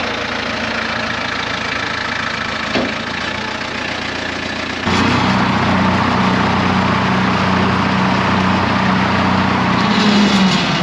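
New Holland compact tractor's diesel engine running just after start-up. About five seconds in it gets louder and a steady deep hum joins as the PTO-driven brush hog (Squealer rotary cutter) is engaged and spins up.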